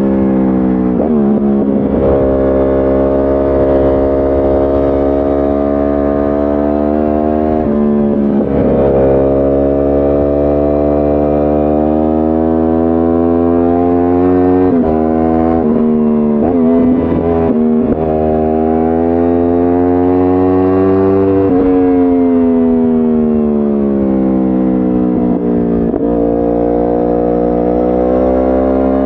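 2010 Yamaha R1 crossplane inline-four through a decatted Akrapovic exhaust, heard onboard while riding. The engine pulls with rising pitch, drops sharply at gear changes about a second in and again about eight seconds in, and goes through several quick up-and-down changes in the middle. It then winds down steadily for about five seconds before pulling again near the end.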